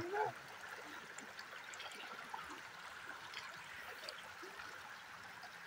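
Floodwater from a breached lake overflow channel running across farmland, a steady low rush of flowing water.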